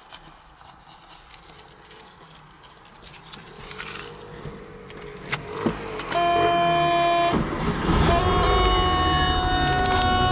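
A 1978 Porsche 911 SC's air-cooled flat-six being started. After a few seconds of faint clicks, a loud steady whine sets in about six seconds in. The engine catches around eight seconds and settles into a low idle, with the whine carrying on over it.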